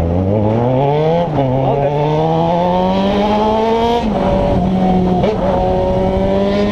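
Motorcycle engine with a 4-into-1 exhaust pulling away under way. The revs climb, drop at a gear change about a second in, climb again for a few seconds, then fall back and hold steady.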